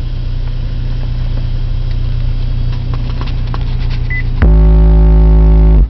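Car engine idling with a steady low rumble. About four and a half seconds in, a 12-inch Pioneer subwoofer on a Brutus 1608D amp starts playing a steady bass test tone in the low-50-hertz range. The tone is very loud and distorted, and it cuts off abruptly near the end.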